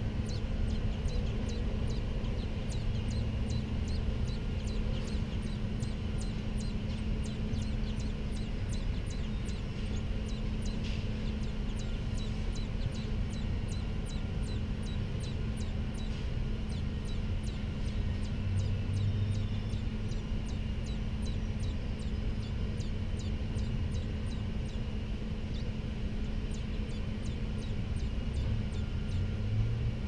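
American robin nestlings begging: a long series of short, high-pitched peeps, about two or three a second, with a short pause near the end. Under them runs a low steady rumble.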